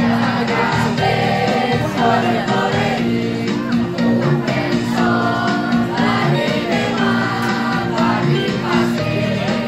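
School choir of teenage boys and girls singing together.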